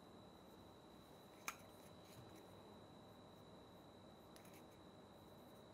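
Near silence: room tone with a faint steady high-pitched whine, one light click about one and a half seconds in and a couple of fainter ticks near the end.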